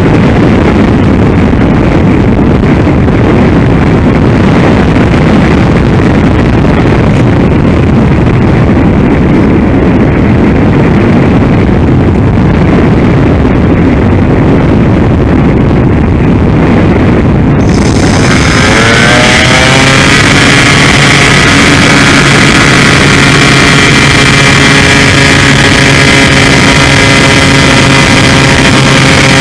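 Airflow rush and motor noise picked up by a camera riding on a Multiplex Easy Star RC glider in flight. About 18 seconds in the sound turns abruptly brighter and a pitched whine appears, rising for a couple of seconds and then holding steady.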